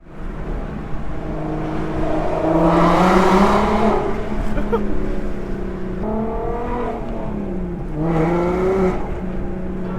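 Car engine and exhaust running, its pitch rising about two and a half seconds in, sinking near the seven-second mark and rising again, with two louder swells as the throttle opens.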